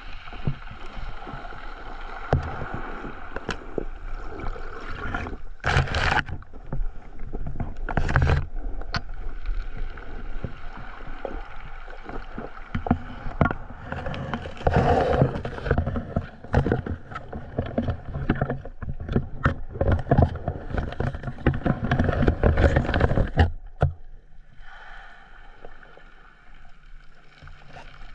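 Underwater water noise around a submerged camera: sloshing and gurgling with many sharp clicks and knocks, and a few louder splash-like bursts. Near the end it drops to a quieter wash with a low steady hum.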